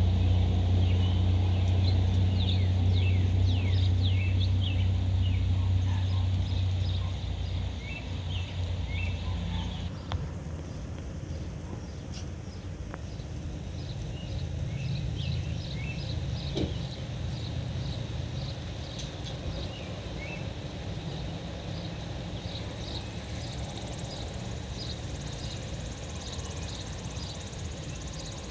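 Small birds chirping over and over, short high notes scattered through the whole stretch. A strong low rumble sits under them for the first seven seconds or so, then fades, and the background shifts abruptly about ten seconds in.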